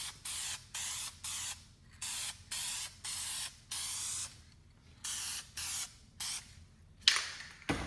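Aerosol spray-paint can (Dupli-Color) hissing in a dozen or so short bursts, about two a second, with a longer, louder burst near the end: light passes laying a second coat of tint over a chrome emblem.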